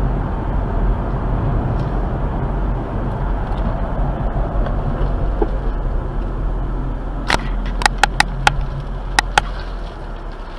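Car driving on an open road, heard from inside the cabin: a steady low rumble of engine and tyre noise. A quick, irregular run of about seven sharp clicks comes a little past halfway.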